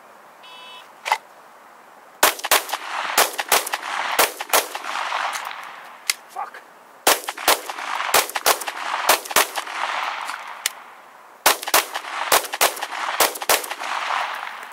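A shot-timer beep, then a pistol fired in quick pairs: three runs of six shots, each shot ringing out in echo, with two short pauses for magazine reloads between the runs.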